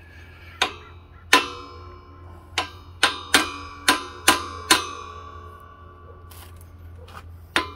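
Hammer tapping on metal to drive a new bearing into a scooter transmission case: about nine sharp, ringing metal-on-metal taps, most of them bunched in the middle, and a last one near the end.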